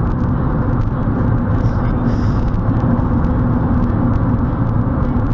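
Steady road and engine noise inside a moving car's cabin: a continuous low rumble of tyres and motor at cruising speed.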